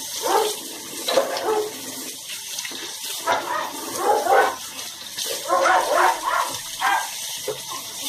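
A dog whining and yipping in short, repeated bursts over the steady hiss of a running tap.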